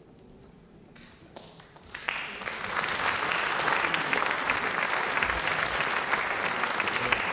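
Concert audience applauding: a few scattered claps about a second in, then full, steady applause from about two seconds in.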